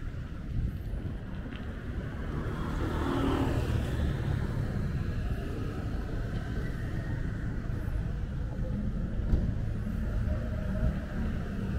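Street traffic: motor vehicles running in slow, jammed traffic, a steady low rumble, with one vehicle passing close about three seconds in.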